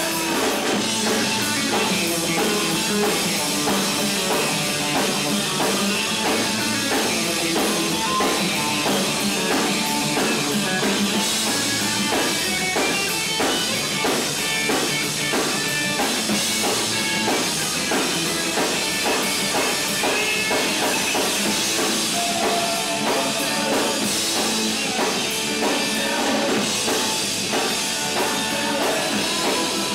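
Punk rock band playing live: electric guitars and a drum kit, with no break in the music.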